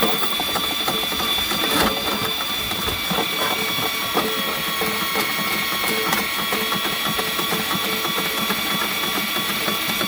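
Heavy-duty power drain snake running steadily, its motor spinning the cable inside a blocked main drain line, with a few sharp clicks about two, four and six seconds in.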